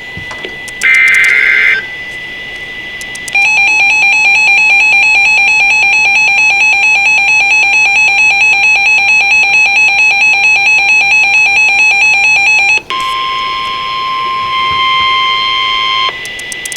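Emergency Alert System tones on NOAA Weather Radio. Near the start come two short bursts of SAME digital header data, a harsh buzzing screech, each about a second long. From about three seconds in, a steady pulsing attention tone sounds for roughly ten seconds, and it gives way to the single steady weather radio warning alarm tone for about three seconds. Together they signal that a new warning, here a severe thunderstorm warning, is about to be read.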